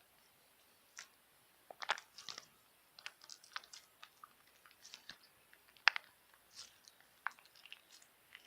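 Stiff, hard slime being pressed and squeezed by hand close to the microphone, giving irregular sharp clicks and crackling pops that start about a second in.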